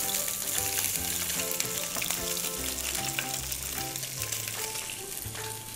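Red mullet pieces and sliced garlic sizzling steadily as they fry in hot oil in a frying pan. Background music with low bass notes plays underneath.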